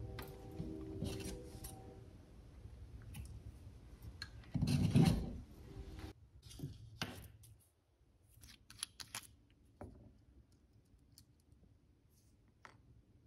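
Handling sounds as waxed leather-sewing thread is drawn off a spool: rubbing and rustling, loudest for about a second around five seconds in, then scattered light clicks and ticks.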